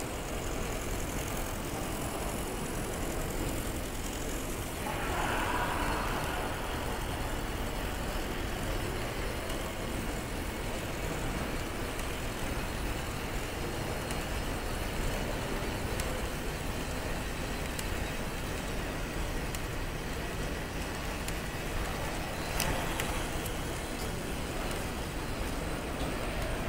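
Lego Break Dance fairground ride model running, with a steady mechanical whir and rumble from its motors and gears. There is a louder swell about five seconds in and a brief clatter shortly before the end.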